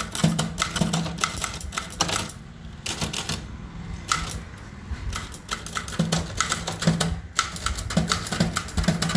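Typewriter keys clacking in a quick, irregular run of keystrokes, with a couple of brief pauses: someone typing on a typewriter.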